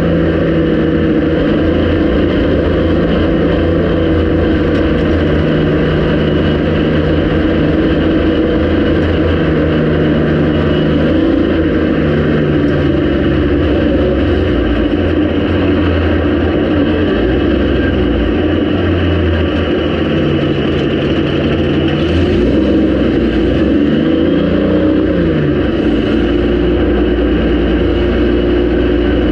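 Speedway race car's engine heard from inside the cockpit, running hard as the car laps a dirt oval. Its note holds steady and dips and rises a few times, around a third of the way through and again after about two-thirds.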